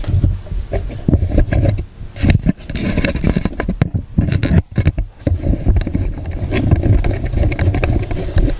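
Handling noise from a microphone being turned around by hand: irregular knocks, scrapes and low rumbles on the mic.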